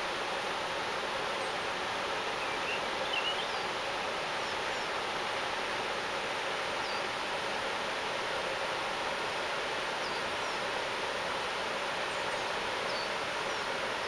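Steady rushing of the Tisza river, with small birds giving short high chirps every few seconds.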